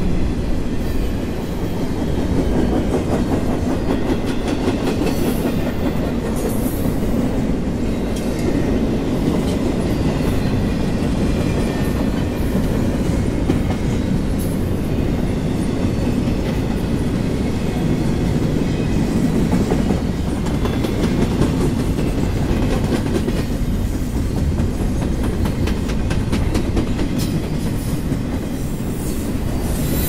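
Double-stack container well cars of a CSX intermodal freight train rolling past: a steady rumble with the clickety-clack of wheels over rail joints.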